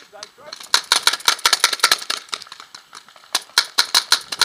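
Paintball markers firing in rapid strings of sharp pops, about nine shots a second, with a pause of about a second between two bursts.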